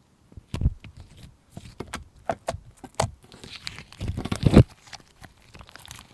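Slime being pressed and stretched by hand, giving a run of sticky clicks and pops and a longer wet crackling squelch about four seconds in.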